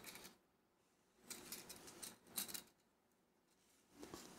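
Faint rustling of nylon paracord being handled and pulled along a tape measure on a wooden table, with a couple of light clicks around the middle.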